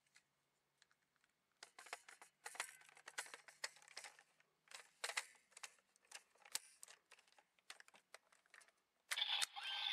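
Hard plastic toy parts clicking and rattling as the Sakura Hurricane Lockvehicle is handled and seated in the Sengoku Driver toy belt, a string of irregular short clicks. About nine seconds in, the belt's electronic voice and music start.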